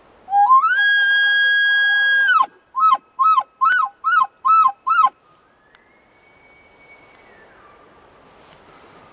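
Elk bugle call blown by a caller: a whistle that climbs and then holds high for about two seconds, followed by six short, quick chirps that rise and fall. A faint drawn-out whistle falling in pitch follows a little later.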